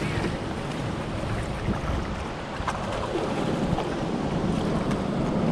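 Whitewater river rapids rushing over rock in a steady, even wash of water.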